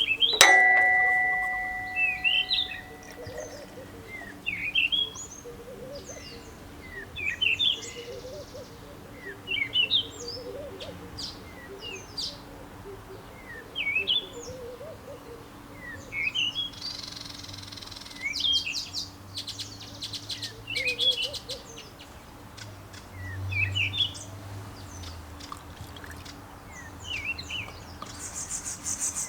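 Birds singing short, repeated chirping phrases every second or two. A sharp metallic clang just after the start rings on for about two seconds and is the loudest sound, with a faint steady low hum underneath.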